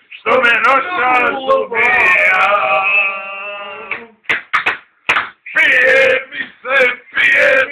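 Men singing loudly without accompaniment, one voice holding a long note for about two seconds, then short broken bursts of voice.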